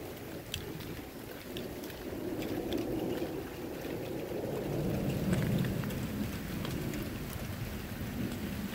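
Thunder rumbling, swelling to its loudest about halfway through and then easing off, with scattered sharp ticks of rain.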